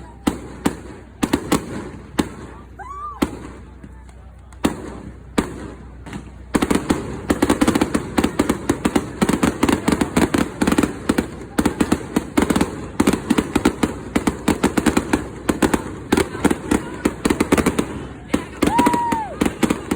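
Fireworks display: scattered bangs, with a short whistle about three seconds in, then from about six seconds in a dense run of rapid crackling pops, and another whistle near the end.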